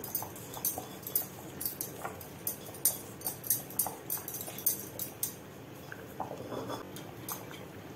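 Thick mutton curry bubbling in a clay pot on a gas burner, with irregular small pops and sputters.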